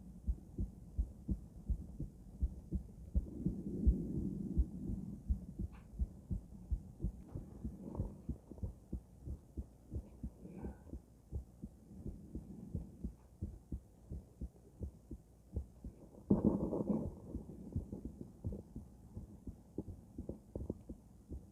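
A woman's heartbeat heard through a stethoscope: a steady, regular lub-dub of low thumps. A brief louder burst of noise comes about three-quarters of the way through.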